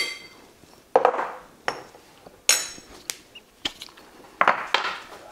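Metal teaspoon clinking and knocking against kitchenware as seasoning is measured out: about seven separate taps, one about two and a half seconds in ringing briefly.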